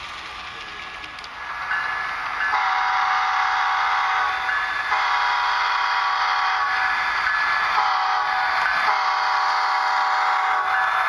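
HO-scale Union Pacific diesel locomotive model's onboard sound horn, played through its small speaker, blowing the grade-crossing signal: two long blasts, a short one, then a long one.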